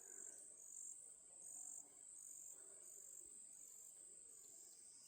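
Faint, high-pitched insect chirring in steady pulses, about two a second, over an otherwise near-silent background.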